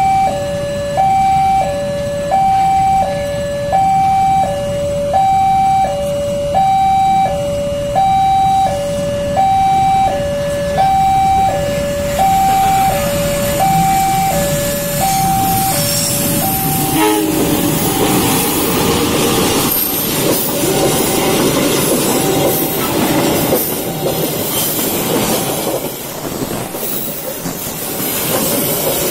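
Level-crossing warning from a loudspeaker: an electronic two-tone alarm stepping between a high and a low note, each held about half a second. About halfway through, a locomotive-hauled passenger train arrives and its coaches pass close by, with a dense rushing and clattering of wheels on rails that buries the alarm.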